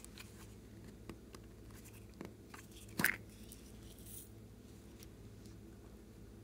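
Small clicks and taps of hands handling slime add-ins, the loudest a sharp click about three seconds in. Just after four seconds there is a brief soft patter as green sprinkles are shaken from a small container onto a bowl of white slime.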